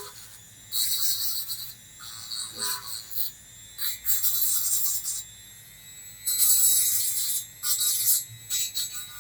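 Wine cork being scraped by hand in repeated strokes, each a scratchy hiss of about a second that stops abruptly, over faint background music.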